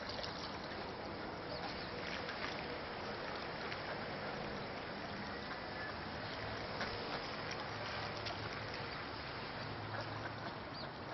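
Steady rush of running water in a shallow creek, with a few faint short sounds over it.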